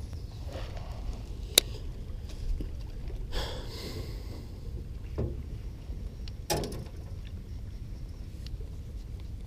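Wind rumbling on the microphone in a small boat on open water, with a few sharp clicks and knocks from handled fishing gear: one sharp click about a second and a half in, another knock near two-thirds of the way through.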